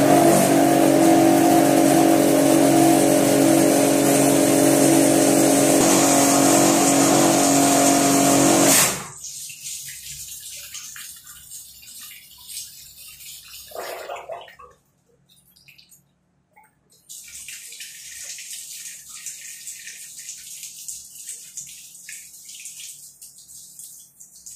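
Electric pressure washer running with a steady hum as it drives water into a household supply pipe to purge an air lock; the motor cuts off suddenly about nine seconds in. After that, water hisses and splashes from the pipe fitting, with a brief silent gap partway.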